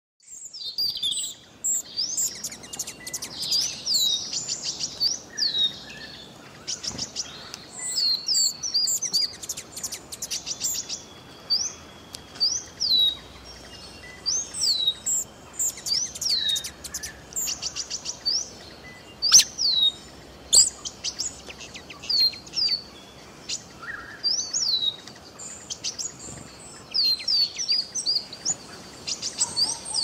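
Hummingbird calls: many short, high, thin chirps that sweep downward, coming in quick clusters of a few at a time, with a few sharp clicks among them.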